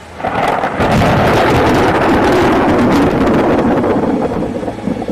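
Loud storm noise, mostly wind buffeting the microphone, breaking in suddenly a moment in and staying strong.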